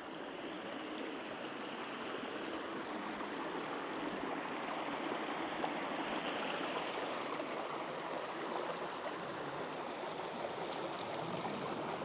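Water of a small waterfall rushing steadily, growing a little louder over the first few seconds.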